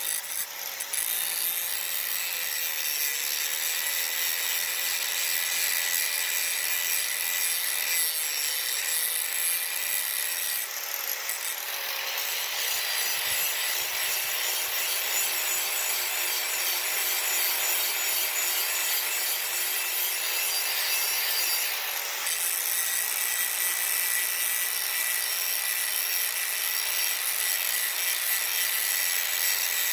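Power grinder grinding the cutting edge of a steel lawn mower blade, a continuous harsh grinding hiss over the motor's steady whine. The motor's pitch sags briefly a few times in the first dozen seconds as the disc is pressed into the blade.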